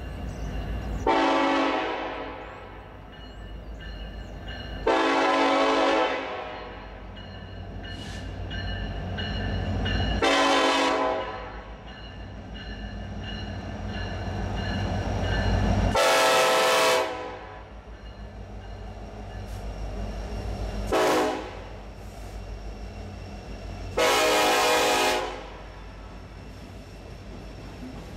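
Multi-chime diesel locomotive horn sounding six blasts for a grade crossing, mostly long with a short one near the end, over the low rumble of the approaching and passing locomotives. By the end, freight hopper cars are rolling past.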